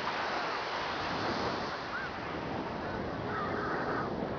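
Steady rushing of wind and surf picked up by a camera hanging from a kite, with a few faint, high, gliding cries over it.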